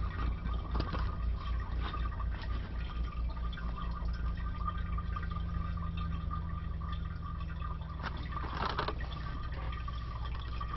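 Stiff plastic blister packaging being pried and pulled open by hand to free a new toilet tank lever: scattered crackles and clicks, with a louder burst of crinkling about eight and a half seconds in, over a steady hum and hiss.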